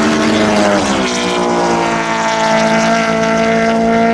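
Drag-race cars at full throttle, with a Mitsubishi Lancer Evolution running close by. The engine note drops in pitch about a second in, then holds steady.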